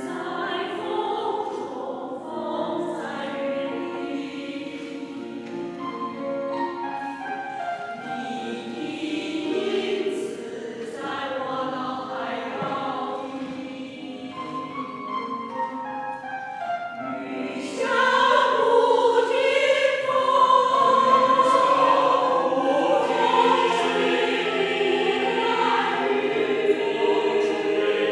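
Mixed choir of women's and men's voices singing in a reverberant church, the singing growing markedly louder about eighteen seconds in.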